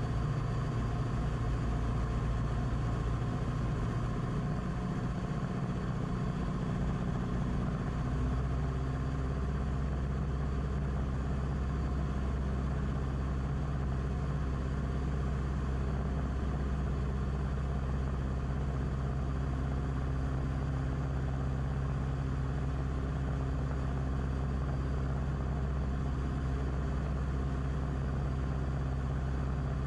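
Beechcraft Musketeer's piston engine and propeller droning steadily in the cockpit on final approach. The low tone of the drone shifts about eight seconds in, then holds steady.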